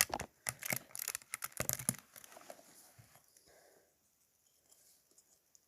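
Plastic Lego bricks clicking and rattling as they are handled and pressed together. A quick run of clicks fills about the first two seconds, then it thins out to a few faint ones.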